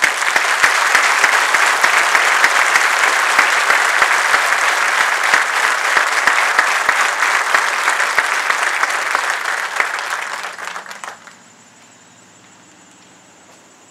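Crowd applauding: dense clapping that starts at once, holds steady, then thins out and stops about eleven seconds in.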